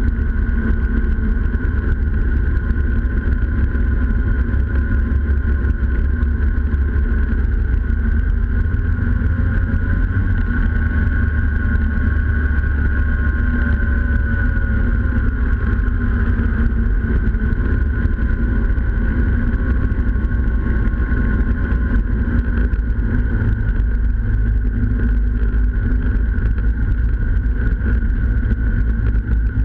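Snowmobile engine running at a steady cruising speed, heard close-up from a camera mounted on the machine, over a heavy low rumble. Its pitch rises slightly about ten seconds in and eases back down over the following several seconds.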